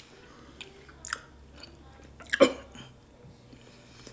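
People chewing flavoured pickle slices, with scattered short mouth clicks and smacks and one louder burst about two and a half seconds in.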